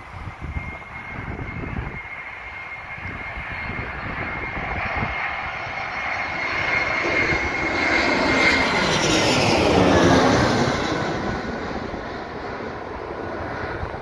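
Airbus A320 airliner on final approach, passing low overhead: a steady high whine from its jet engines as it nears, the engine noise growing to its loudest about ten seconds in with a sweeping rush as it goes over, then fading away.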